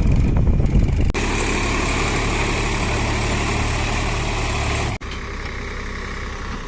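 Diesel engine of heavy machinery running steadily. The sound changes abruptly about a second in and again near the end.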